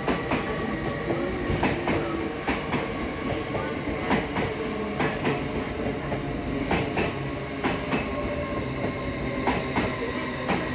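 LNER Hitachi Azuma train passing along the platform road, its wheels clicking over rail joints, mostly in quick pairs, over a continuous rumble from the running gear and a faint steady high tone.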